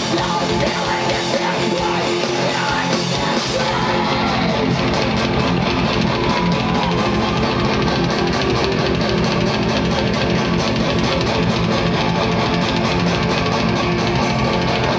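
Hardcore metal band playing live and loud through a festival PA: distorted electric guitars, bass and drums. The low end gets heavier about four seconds in.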